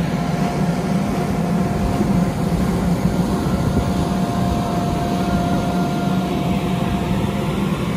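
Electric blower fan of an inflatable bounce house running steadily, a constant drone with a thin steady whine over it.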